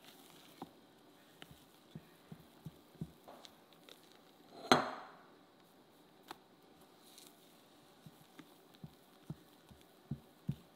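Silicone spatula folding meringue into batter in a glass mixing bowl: soft scrapes and small knocks throughout, with one sharp knock against the glass and a brief ring a little before halfway through.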